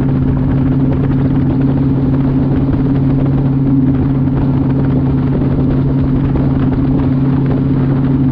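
Bass boat's outboard motor running at a steady high cruising speed, an even drone under the rush of wind and water as the hull runs across the lake.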